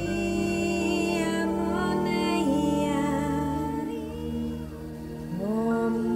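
Meditative music of layered wordless light-language vocals, several voices humming and singing long held tones over a steady low drone, with pitches sliding upward about five seconds in.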